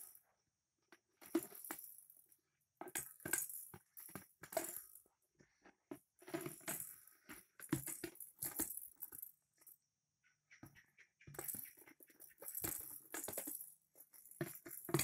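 Large empty clear plastic tub being handled, knocked and shaken on a bed, in irregular bursts of hollow clattering and rattling with short pauses between them.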